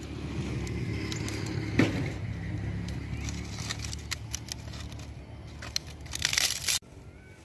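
Dry sticks and dried leaf sheaths being snapped and handled by hand while laying a small fire, with scattered crackles, a sharp snap about two seconds in, and a burst of rustling near the end that cuts off suddenly. A low steady rumble runs underneath.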